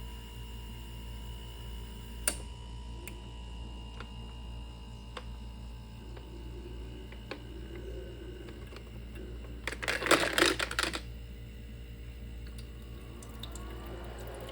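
A steady low hum with scattered clicks, one sharp click about two seconds in, and a short rattling clatter about ten seconds in, the loudest sound.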